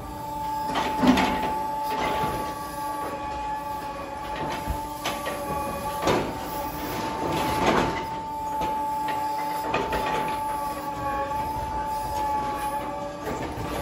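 Hay crane's grab working through compressed alfalfa bales: a steady mechanical whine from the crane's drive, with swells of rustling and crackling as the grab tears the bales apart, strongest about a second in and around six and eight seconds in.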